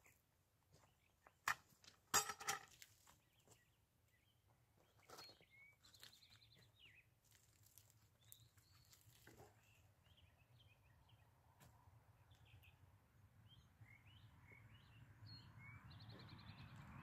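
Quiet outdoor ambience with small birds chirping and trilling now and then. A few sharp knocks and rustles come in the first few seconds, the loudest about two seconds in. A low rumble builds slowly toward the end.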